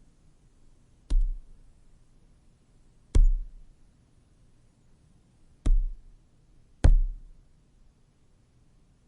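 A fist punching a phone book: four thuds with a deep low end, the first about a second in, the last two less than a second and a half apart.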